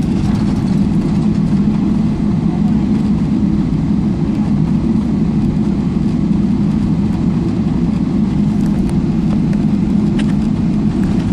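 Steady low drone inside the cabin of a Boeing 777-300ER as it taxis on the ground, its GE90 engines at taxi power.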